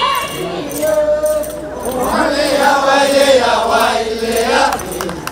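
A group of voices singing a chant-like song in long held notes that slide at the ends of phrases, with a short break about two seconds in.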